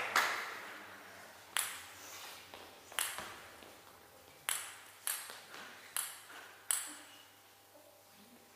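Table tennis ball bouncing between points: about seven separate sharp clicks, spaced irregularly half a second to a second and a half apart.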